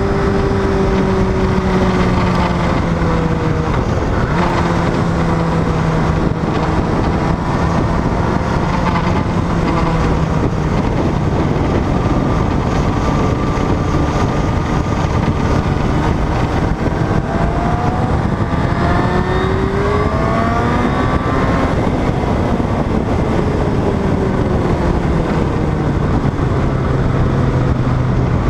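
Onboard sound of a motorcycle lapping a race track: wind rush over a steady engine note, the engine pitch rising about two-thirds of the way through and then falling back.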